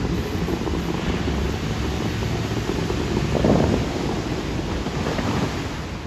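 Bellagio fountain water jets rushing and splashing back onto the lake, a steady hiss of falling water with a louder whoosh about three and a half seconds in.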